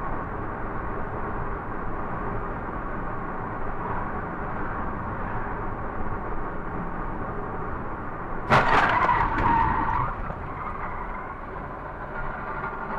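Steady road and engine noise of a moving car, then about eight and a half seconds in a sudden loud crash-like noise with a squeal, fading over about a second and a half.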